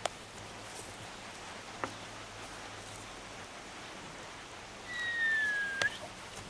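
Steady open-air hiss with a few sharp clicks, and near the end a clear whistled note about a second long that falls slightly in pitch.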